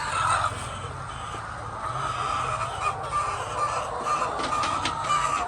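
A flock of hens calling over one another in a continuous din, with a few sharp clicks near the end.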